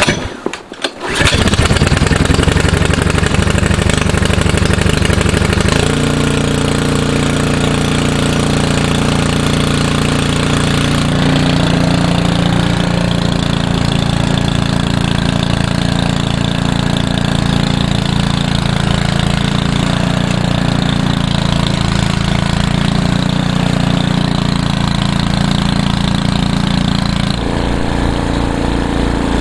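A small engine starts up about a second in and keeps running steadily, its pitch stepping up or down a few times as the throttle or load changes.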